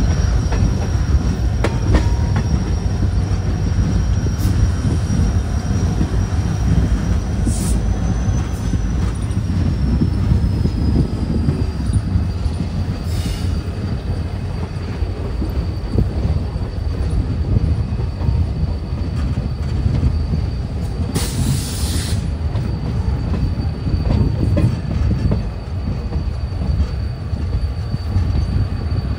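Passenger train rolling along, heard from on board: a steady low rumble of wheels on rail with a thin high squeal held throughout. A brief hiss comes about three-quarters of the way through.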